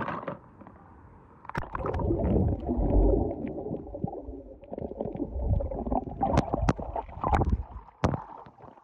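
Water splashing and sloshing as a hand stirs it, with several sharp clicks.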